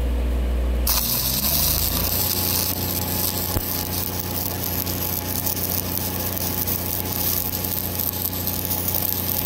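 Stick welding with a 1/8-inch ESAB 7018 electrode at 124 amps on rusty, uncleaned steel: the arc strikes about a second in, then runs with a steady crackling hiss. Under it, the Lincoln 305D engine-driven welder's engine hums and rises in pitch just after the arc strikes.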